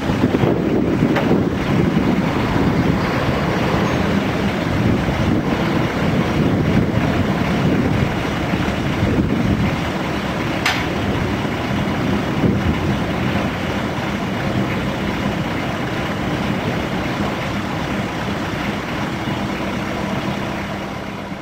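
Combilift four-way forklift running steadily as it handles a racked load of long boxes at a trailer's side, with a single sharp click about halfway through.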